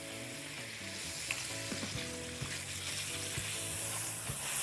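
Cubes of chicken sizzling in hot oil in a nonstick frying pan, with a spatula stirring them and making small scraping ticks against the pan.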